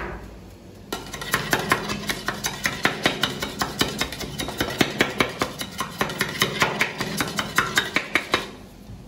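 Knife blade striking and scraping the rim of a round aluminium baklava tray in rapid repeated strokes while cutting the pastry layers around its edge. The strokes start about a second in and stop shortly before the end.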